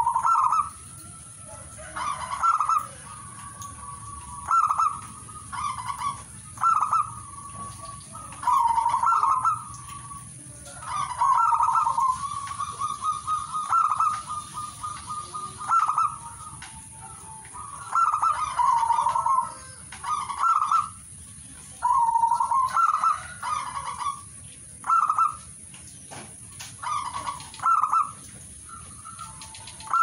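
Zebra dove (perkutut) cooing: short rolling coo phrases repeated every one to two seconds, with a longer run of quick stuttering notes near the middle.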